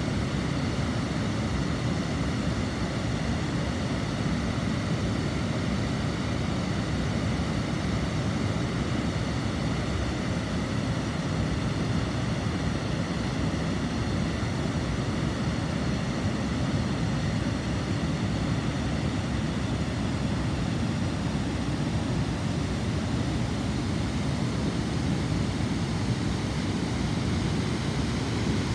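Water pouring over a river weir: a steady, low, rushing noise of falling water.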